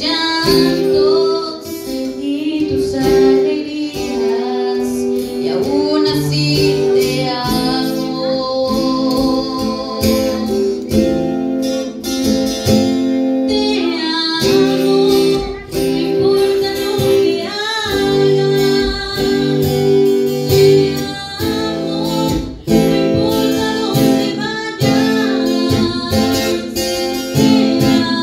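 Live band music: a sung melody over guitar and keyboard, with a regular beat.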